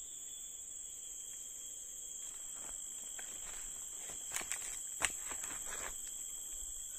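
Steady high-pitched drone of forest insects, with a few sharp clicks or knocks a little past four seconds in and one more about a second later.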